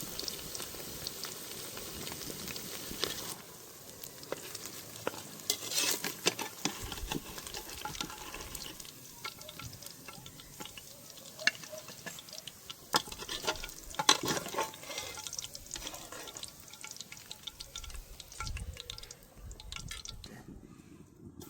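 Hot oil sizzling in a pan, then many clicks and knocks of a utensil as potatoes go into the oil and are stirred.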